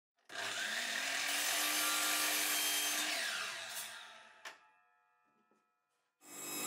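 A mitre saw's motor starts and its blade cuts through a cricket bat's cane handle, then the motor is switched off and winds down with a falling whine. There is a sharp knock about four and a half seconds in, and a power tool starts running again near the end.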